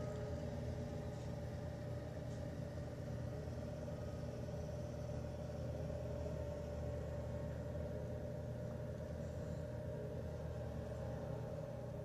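Bobcat S300 skid-steer loader's diesel engine running steadily while it clears snow, a low rumble with a constant mid-pitched tone over it.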